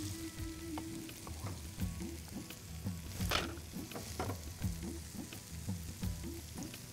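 Broken red bedgi chillies frying in butter in a small tempering pan, a steady sizzle. A few sharp clicks of a spatula against the pan break through it, the loudest about three seconds in.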